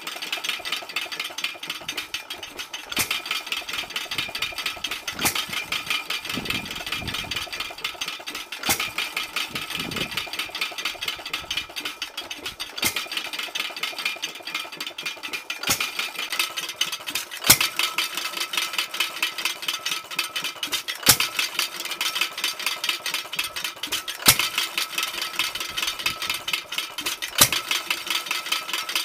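A 1916 Fairbanks Morse 1.5 hp headless hit-and-miss stationary engine running, with a steady fast mechanical clatter as its flywheels carry it. A sharp firing stroke cracks out every two to four seconds, about ten times: hit-and-miss governing, firing only when the speed drops and coasting in between.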